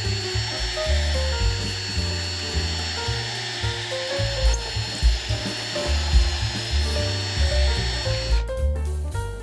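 Background music with a steady bass beat and a stepped melody. Under it, a steady high whine and hiss like a running power tool cuts off abruptly about eight seconds in.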